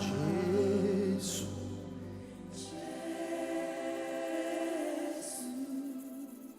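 A choir singing a slow gospel worship song in long held notes. The low accompaniment drops out about two seconds in, leaving mostly voices.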